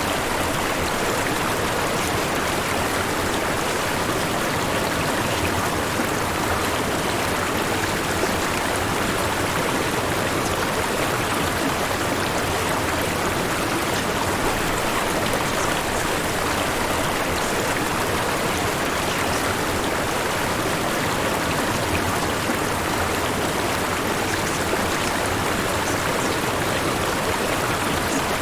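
Steady rushing noise like running water from a stream, even and unchanging throughout, with no distinct tones or separate events.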